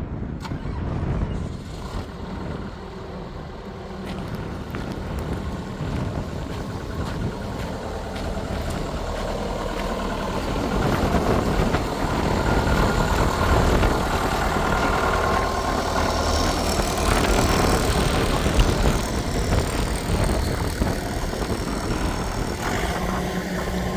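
Hitachi EX120 excavator's diesel engine running, growing louder and busier from about ten seconds in.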